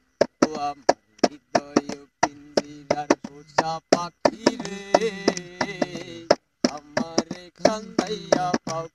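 Unaccompanied group performance of a Bengali folk song: sharp percussive taps keep a fast beat, about three to four a second, while wordless voices sing the tune between the verses.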